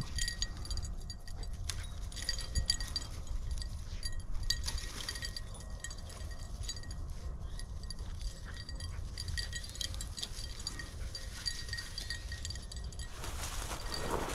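Small metal jingling in quick, irregular clinks from a flushing dog's collar working through cover, over a steady low rumble on the microphone. Dry weeds rustle louder near the end as someone pushes through them.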